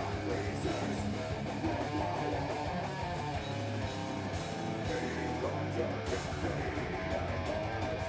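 Live band playing electric guitar, bass guitar and drums together, with dense rapid drum hits throughout.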